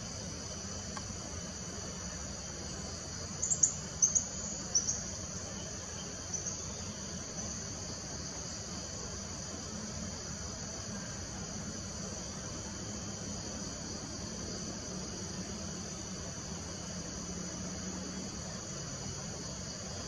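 Steady high-pitched insect chorus, with a few short sharp high chirps clustered about three and a half to five seconds in and a couple more just after six seconds.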